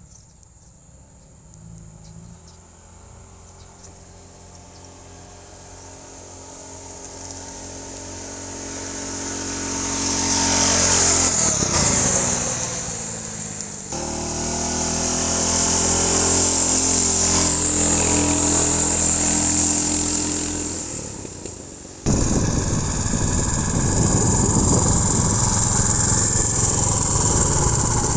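Small generator-type petrol engine on a motorized bicycle, running. It grows louder as it approaches and its pitch drops as it passes, then it runs steadily loud. About two-thirds of the way in, the sound changes abruptly to a louder, rougher noise.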